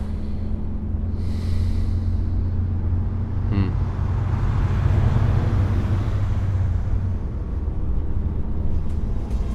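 Car interior road and engine rumble while driving, a steady low drone that swells a little around the middle. About three and a half seconds in, a brief pitched sound cuts through.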